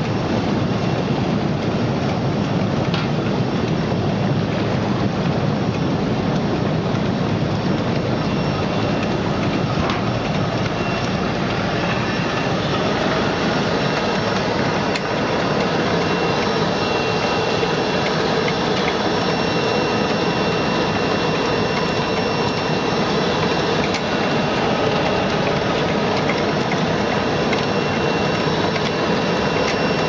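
Bubble-type washing machine running with fish in it: a steady churning, rain-like rush of air-agitated water. About twelve seconds in, the sound shifts higher and a faint steady high tone joins as the mesh roller conveyor section turns.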